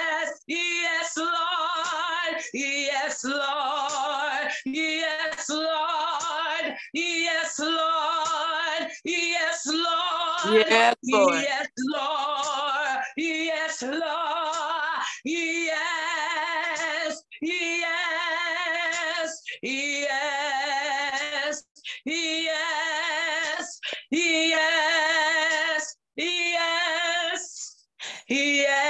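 A woman singing solo and unaccompanied, in short phrases of long held notes with heavy vibrato and brief breaths between them. About ten seconds in comes a louder, sliding note.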